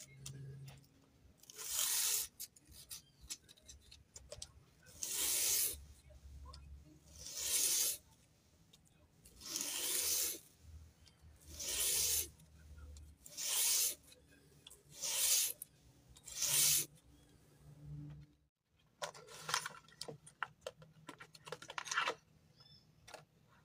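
A small piece of knife-handle material rubbed by hand in slow back-and-forth strokes on sandpaper laid flat on a board, about nine strokes with a pause between each. After a break near the end, a quick run of scratchy crackles as the epoxy packaging is handled.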